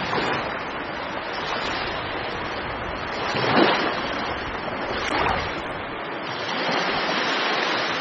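Heavy storm surf breaking over a seawall and washing across a promenade: a continuous rushing of water with two louder surges, about three and a half and five seconds in.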